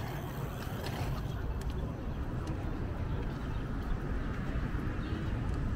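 Busy downtown street ambience: a steady low traffic rumble with faint voices of passers-by and scattered small clicks.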